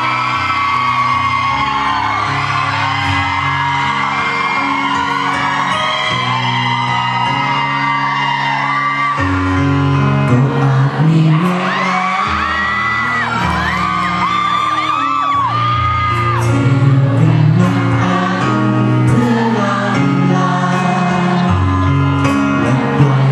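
Thai pop song performed live: a male singer singing into a handheld microphone over pop music accompaniment, with whoops and shouts from the audience.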